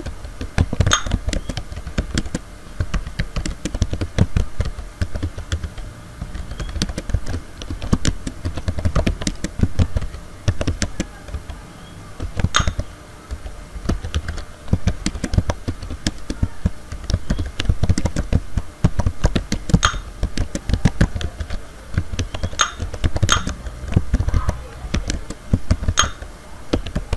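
Fast typing on a computer keyboard: a quick, steady run of keystrokes, several a second, easing off briefly now and then.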